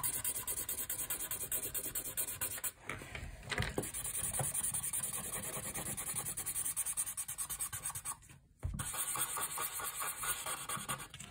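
Felt-tip marker scratching on paper as it colours in, in rapid back-and-forth strokes, several a second. It pauses briefly twice.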